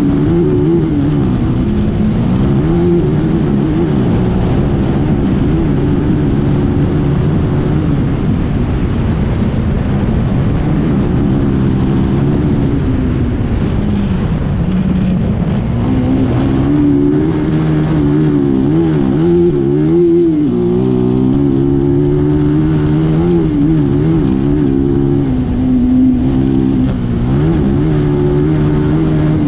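Class 10 race buggy's engine heard from on board, running hard under racing throttle, its pitch climbing and dipping repeatedly as the driver works the throttle along the track.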